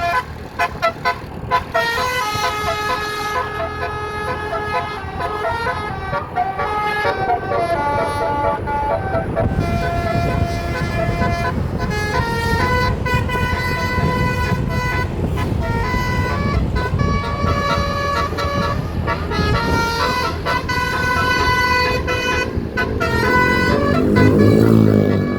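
Basuri telolet horn on a bus playing a tune: a string of held, overtone-rich notes that step up and down in pitch one after another. A bus engine rumbles underneath from about ten seconds in and is loudest near the end.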